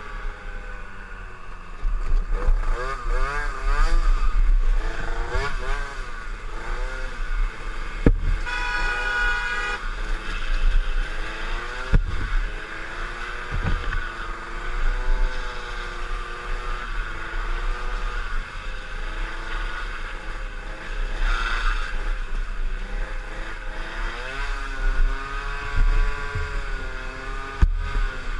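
Motor scooter engine running hard, its pitch rising and falling repeatedly as the throttle is opened and closed, over heavy wind noise. A steady tone sounds for about a second and a half about eight seconds in, and a few sharp knocks come through.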